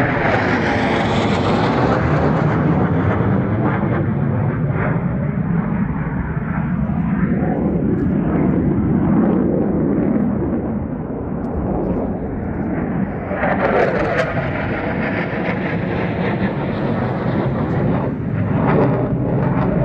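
Fighter jet flying overhead, its jet engine noise loud and continuous throughout, with a sweeping, phasing tone at the start and a fresh swell about thirteen seconds in as it passes again.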